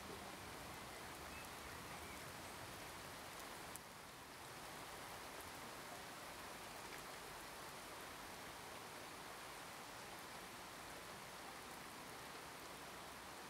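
A utensil stirring a cheesy cauliflower mixture in a bowl: a steady, soft, wet churning that dips briefly about four seconds in.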